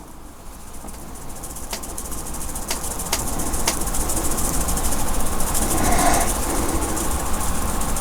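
Plastic static grass shaker being shaken by hand, its load of grass fibres rattling against the sieve in a fast, steady patter that builds over the first few seconds, with a few sharp clicks early on.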